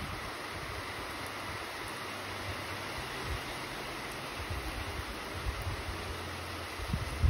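Rain falling steadily, a continuous hiss, with low gusts of wind buffeting the microphone, strongest near the end.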